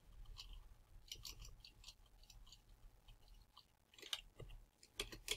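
Faint, irregular clicks of computer keyboard keys being pressed in small clusters, over a low steady hum.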